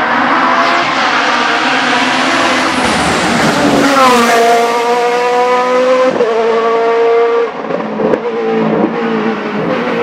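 Race car engine running hard at high revs. About four seconds in, its pitch drops sharply and then climbs again as it pulls. It is somewhat quieter in the last couple of seconds.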